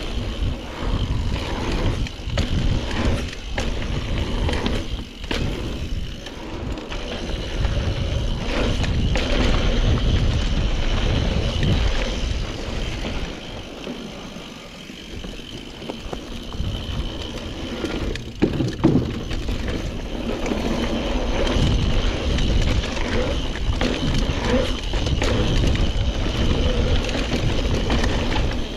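Mountain bike riding down a dirt trail: tyres running over the ground and the bike rattling over bumps, with a heavy low rumble and scattered knocks.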